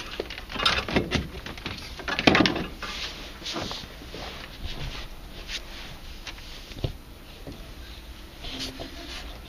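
Irregular knocks, clicks and rustling as a hot tub circulation pump is pushed back into place among the pipes in the cabinet, busiest over the first three seconds, then quieter scattered handling noise.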